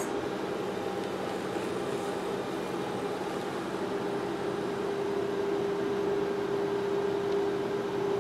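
Cryolipolysis fat-freezing machine running at the start of a treatment, its vacuum pump and cooling unit giving a steady hum that grows somewhat stronger about halfway through.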